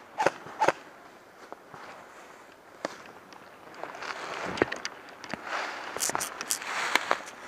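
Footsteps crunching through dry fallen leaves on a forest floor, a few sharp steps at first, then a denser, faster crunching from about four seconds in as the pace picks up.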